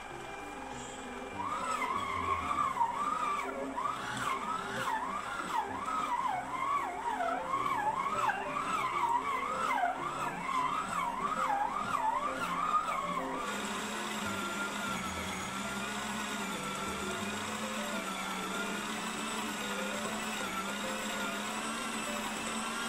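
Kyowa KW4510 stand mixer running with its dough hook kneading a stiff dough. The motor whine wavers up and down in pitch as the hard dough loads it. About halfway through it settles into a steadier, higher-speed whine.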